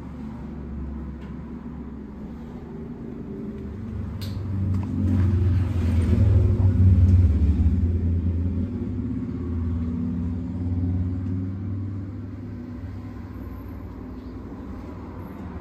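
Aprilia SX125's 125 cc single-cylinder four-stroke engine running at idle, a steady low rumble that swells louder for a few seconds in the middle, with a single sharp click about four seconds in.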